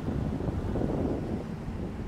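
Wind buffeting the microphone over choppy river water: a steady low rumble.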